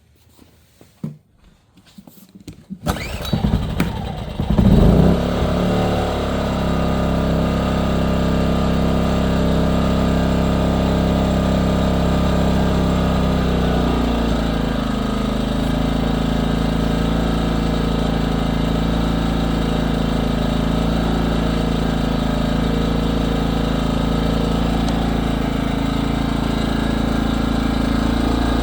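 Pioneer Works PW2800iS inverter generator starting: a few clicks, then the engine catches about three seconds in and surges briefly before settling into steady running. Around the middle the engine speed drops to a slightly lower steady note.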